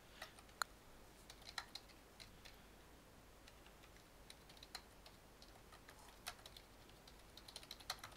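Faint, irregular keystrokes on a computer keyboard, with a quick run of them near the end.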